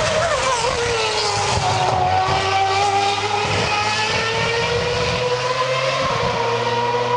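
Formula 1 car's 2.4-litre V8 engine running at high revs, its pitch dropping over the first two seconds and then climbing slowly as it holds a sustained, high-pitched note.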